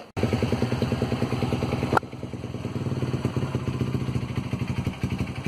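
Yamaha motorcycle engine running through a bullet-style exhaust whose silencer has been drilled out, giving a rapid, even popping beat at a steady pitch. There is a brief click and a dip about two seconds in.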